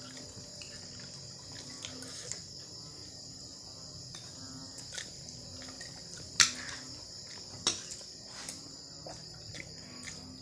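Steady high chirring of crickets at night, running all through. A few sharp clicks and knocks sound over it, the loudest about six and a half seconds in and another about a second later.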